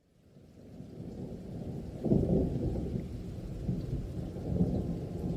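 Thunderstorm: rain with rolling thunder, fading in from silence, then a louder clap of thunder about two seconds in that rumbles on in waves.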